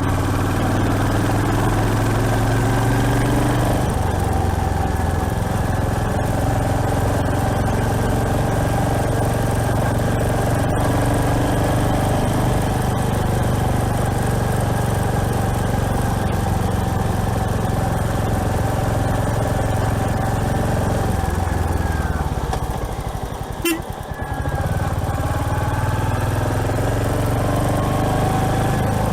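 Royal Enfield Hunter 350's single-cylinder engine running under way, steady with a shift in pitch a few seconds in. About three-quarters through, the revs drop off with a short click, then climb again as the bike pulls away.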